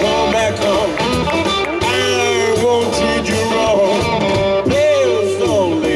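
Live blues band playing: a harmonica played into the vocal microphone leads with bending, sliding notes over electric guitar, upright double bass and drums.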